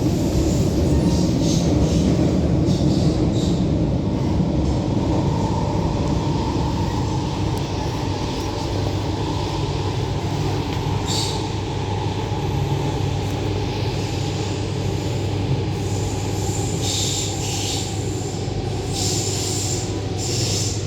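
Steady running noise of an MTR Rotem EMU train heard from inside the car: a low rumble of wheels on rails with a steady hum, and brief high-pitched wheel squeals about halfway through and again several times near the end.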